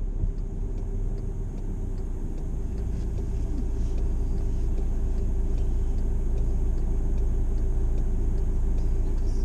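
Steady low rumble of road traffic, growing slightly louder, with a steady hum and faint regular ticks about two to three times a second.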